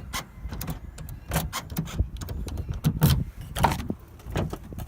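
Scattered clicks, rattles and a few dull knocks from a key and the driver's door of an Isuzu Rodeo being handled.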